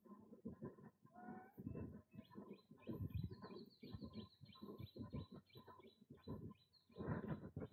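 Domestic chickens clucking, with a brief rising call a little after a second in and then a quick run of short, high repeated chirps. Soft irregular scuffing and crackling sounds run underneath.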